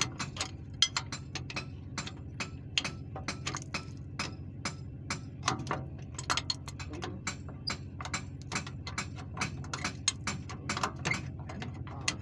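Quick, irregular metallic clicks and clinks of hand tools on nuts and bolts while a truck's air brake booster is unbolted, over a steady low hum.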